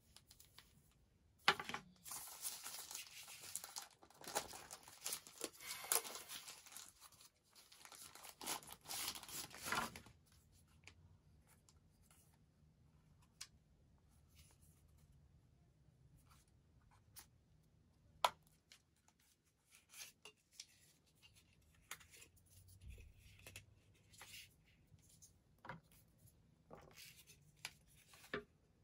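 Paper wrapping rustling and tearing as a small grey accessory is unwrapped, for the first third or so. This gives way to scattered light clicks and taps of small plastic camera parts being handled and fitted together.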